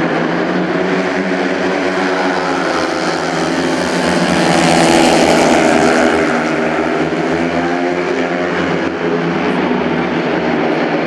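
Four 500 cc single-cylinder speedway motorcycles racing together at high revs as a pack. The sound swells to its loudest about five seconds in as the bikes pass close, then eases.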